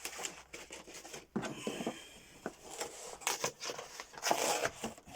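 Packaging being handled and unpacked: irregular rustling and crinkling with scattered clicks and taps.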